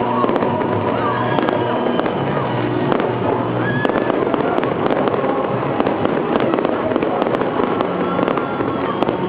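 Aerial fireworks display going off continuously, a dense crackle of many sharp pops and bursts with no break.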